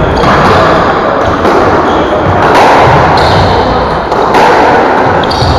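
Squash rally: the ball cracking off rackets and the court walls about once a second, with rubber-soled court shoes squeaking on the wooden floor.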